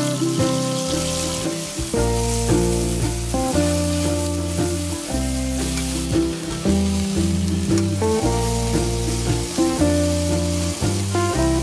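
Eggplant slices sizzling as they pan-fry in a little oil over medium heat. Background music with a bass line and melody plays throughout.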